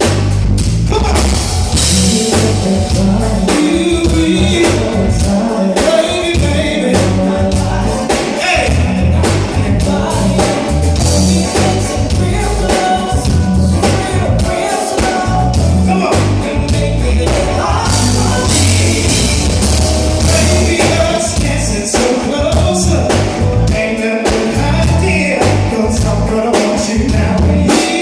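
Live band playing a loud, steady groove with a heavy drum and bass pulse, a singer's voice over it.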